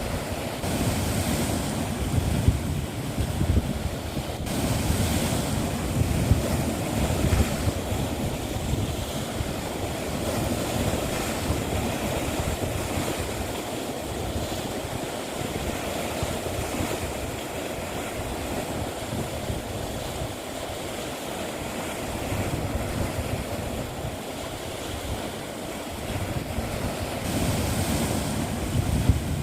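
Sea waves washing against a rocky shore, the surf swelling and easing in slow surges, with wind buffeting the microphone.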